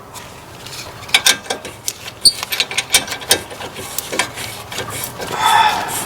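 Irregular metallic clicking and clinking of hand tools as an Allen key works the brake caliper's guide bolts, with a short rasping scrape near the end.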